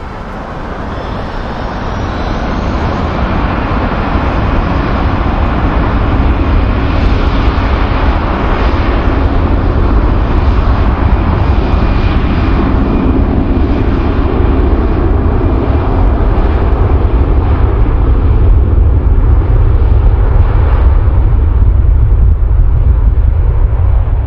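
Jet airliner's engines, swelling over the first few seconds into a loud, steady rumble with a heavy deep low end.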